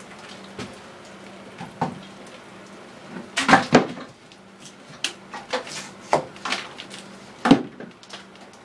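Scattered knocks and clatters of a plumber handling tools and materials while working overhead, with a cluster of loud bangs about three and a half seconds in and another sharp bang about seven and a half seconds in.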